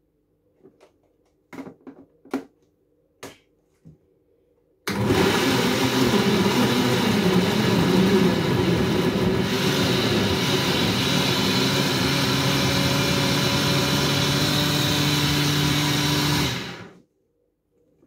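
Silver Crest countertop blender running at full power for about twelve seconds, pureeing chunks of red pepper, tomato and onion into a smooth liquid, then switched off and winding down. A few light knocks come before it starts.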